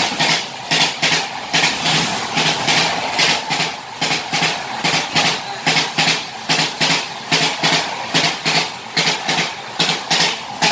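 Samaleswari Express passing close alongside, its wheels clattering over the rail joints in a fast, even rhythm of about two to three clacks a second, heard from inside a train coach through its open window.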